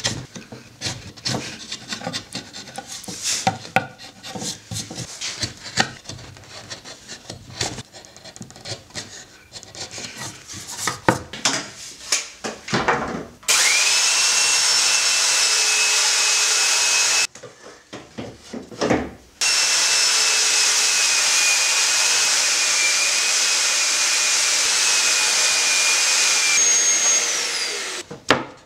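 Chisel paring and scraping oak in quick, short strokes. Then a handheld belt sander runs steadily with a high whine. It breaks off briefly, runs again, and winds down near the end.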